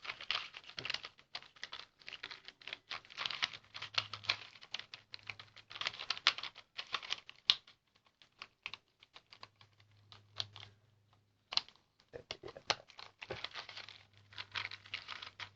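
Rubik's cube layers being twisted quickly by hand to scramble it: dense runs of small plastic clicks and rattles, thinning out to a few scattered clicks around the middle before picking up again.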